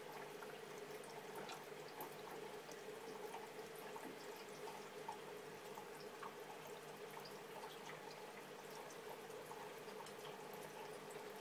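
Faint steady trickle of aquarium water with small scattered drips and pops over a steady hum, the sound of the tank's running water circulation.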